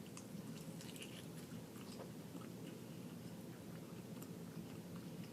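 Faint close-up chewing of fried chicken, with a few soft mouth clicks.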